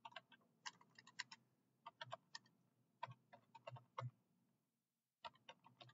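Faint computer keyboard keystrokes, typed in quick irregular runs of clicks, with a pause of about a second near the end before a few more keys.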